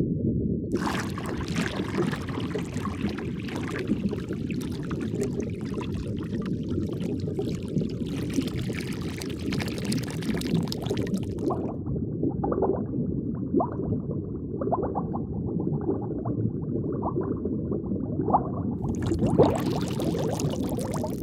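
Underwater ambience: a steady low rumble with bubbling and fizzing water. The bubbling is bright and crackly for the first half, turns muffled with separate bubble pops from about 12 s, and turns bright again near the end.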